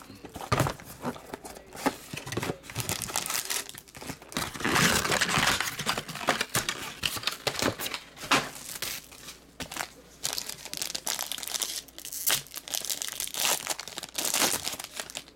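Foil wrapper of a 2019 Topps Tier One baseball card pack crinkling and tearing as it is handled and ripped open by hand, in irregular crackling bursts that are loudest about a third of the way in and again near the end.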